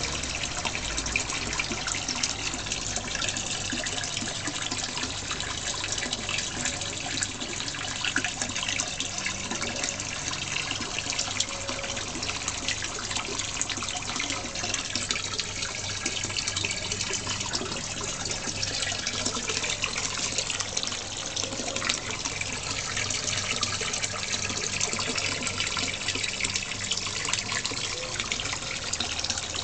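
Running pond water trickling and splashing steadily, with no pause.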